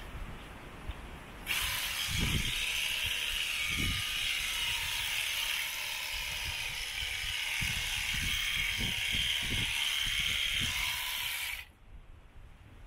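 Shearing handpiece running and clipping fleece from an alpaca's leg: a steady mechanical buzz that switches on suddenly about a second and a half in and cuts off near the end, with a few low thumps underneath.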